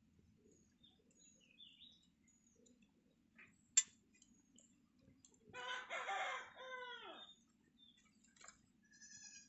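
A rooster crows once, about halfway through, in a call of roughly a second and a half that falls in pitch at its end. A single sharp click comes a little before it, and faint bird chirps sound near the end.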